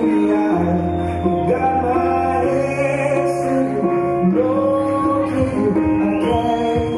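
Background music: held chords that change every second or so over a steady bass line, with some singing.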